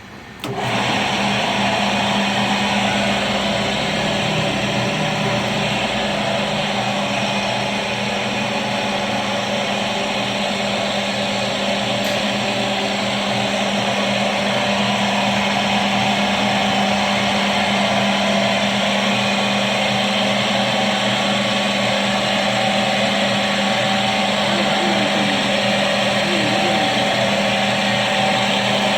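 An automatic stone-drilling machine starts abruptly about half a second in and then runs steadily, a motor hum over a dense grinding hiss.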